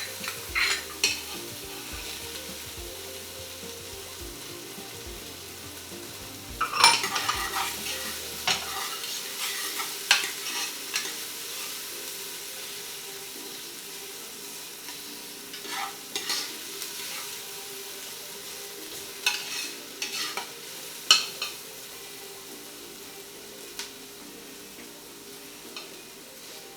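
Sliced garlic and onions sautéing in a pan, with a steady sizzle. A utensil stirs and scrapes against the pan now and then.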